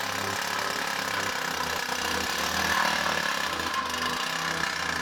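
Engine-driven water pump running steadily, transferring water from the hauled totes into the storage tank.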